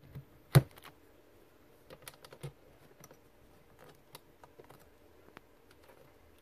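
Scattered clicks and taps from a hand handling the phone camera as it is set up, with one sharp knock about half a second in.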